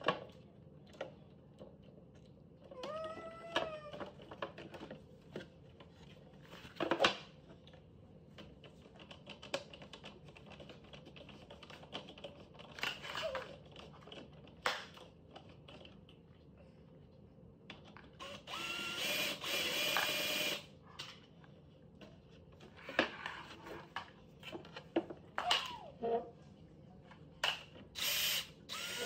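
Knocks and clatter of particleboard chair panels being handled during assembly, with a power drill running for about two seconds past the middle, driving a screw. A small child gives a few short whines.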